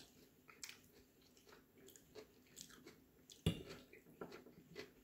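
A person chewing a mouthful of salad with beans, faint wet chewing with small crunches, and one louder click about three and a half seconds in.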